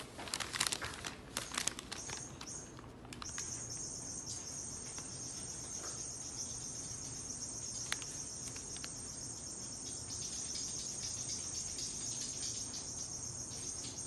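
Steady high-pitched insect chirping, with scattered clicks and taps in the first three seconds.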